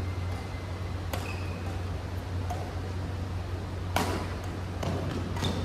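Badminton rackets hitting a shuttlecock during a rally: a faint hit about a second in, then two sharp smacks about four and five and a half seconds in, the first of them the loudest. A steady low hum runs underneath.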